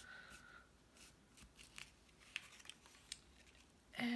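Faint scattered clicks and light rustling of cardstock pieces being handled.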